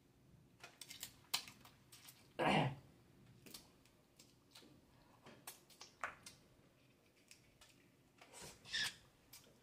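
Snow crab shell being cracked and picked apart by hand: scattered snaps and clicks of shell, with two louder mouth sounds from eating the crab meat, one about two and a half seconds in and one near the end.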